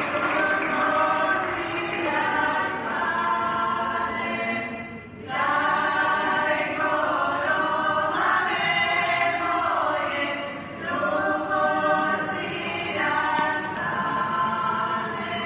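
Folk ensemble singers singing a Croatian folk song unaccompanied, in long phrases with brief breaks about five and eleven seconds in.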